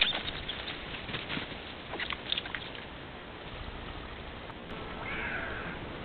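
Animal running through dry grass and leaf litter, crisp rustling and pattering over the first couple of seconds. A short bird call about five seconds in.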